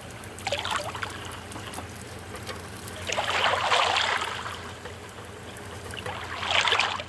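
Water sloshing and splashing in three surges: a short one near the start, a longer one in the middle and another near the end, over a steady low hum.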